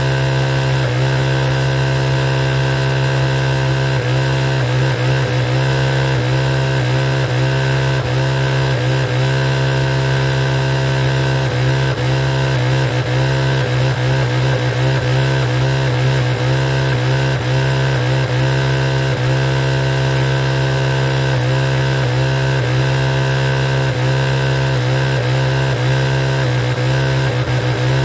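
Electric sewing machine running steadily at speed: a constant motor hum under fast, even needle strokes.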